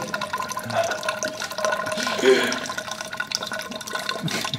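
Water displaced by a vase pushed into an overflow can trickles from the can's spout into a plastic graduated cylinder, a steady running-and-filling sound.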